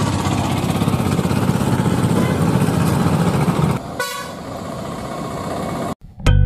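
Wind rumbling on the microphone over breaking surf, loud for the first four seconds and then quieter. About four seconds in there is a brief pitched tone. Guitar music starts just before the end.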